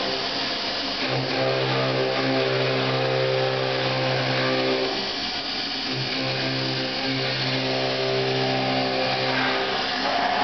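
CNC vertical machining centre milling a metal part with an end mill: the spindle and cut give a steady hum with a whine over a hiss of cutting noise. The tone breaks off for about a second near the middle and then picks up again.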